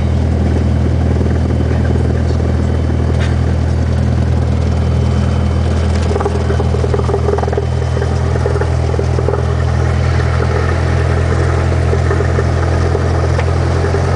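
Cessna 172's piston engine and propeller running steadily at low power while the plane taxis after landing, heard from inside the cabin.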